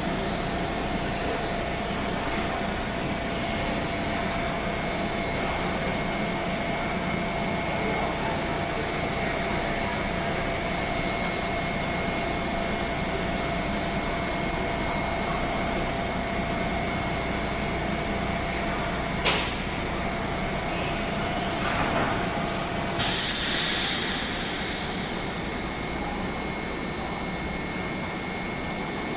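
A MARTA rapid-transit train standing at an underground platform, its on-board equipment giving a steady hum with several high, steady whines. About 19 seconds in there is a sharp click. About 23 seconds in a sudden loud hiss fades over two or three seconds, and two of the whines cut out with it.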